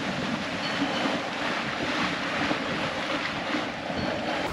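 Sailing yacht under way: wind and the sea rushing along the hull, with wind buffeting the microphone.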